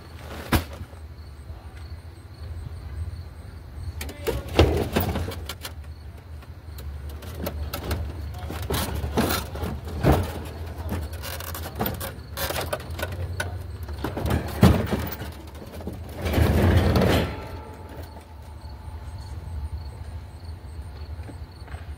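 An engine running with a steady low hum, under a series of irregular clunks and knocks and one longer rattling burst near the end.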